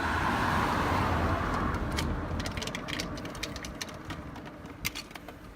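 Tyre noise of a passing car on the road, fading away over the first few seconds, then a run of irregular clicks as the car jack is wound down to lower the car.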